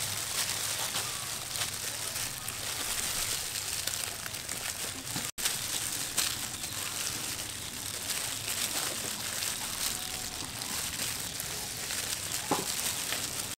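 Thin plastic food-prep gloves crinkling and rustling as hands pull jackfruit pods from the fibrous flesh, with a steady high hiss behind and a brief dropout about five seconds in.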